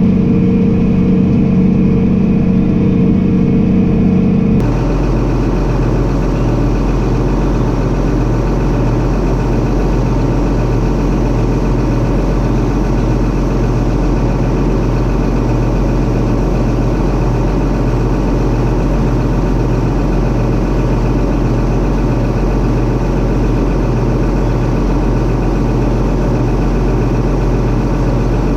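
Engine of harvest machinery running steadily. About four and a half seconds in, the sound changes abruptly to a deeper, steady hum with a regular low pulsing.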